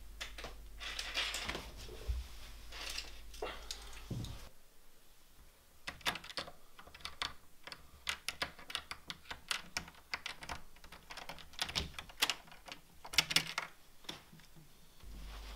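Hands rustling over papers on a table, then a run of sharp metallic clicks and rattles as a key is worked in a wooden door's lock and the door knob turned, with the loudest clunks near the end.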